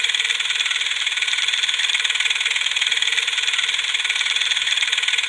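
Film projector sound effect: a steady, fast mechanical clatter with a hissy, high sound and no low end.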